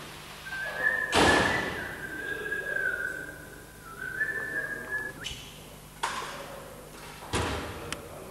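A person whistling a few wavering high notes for about four and a half seconds. A loud thud comes about a second in, and two softer knocks follow later.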